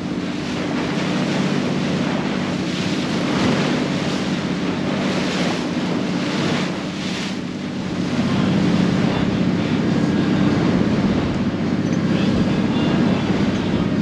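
A tour boat's engine running steadily, mixed with wind buffeting the microphone and the rush of the sea. It gets louder about eight seconds in.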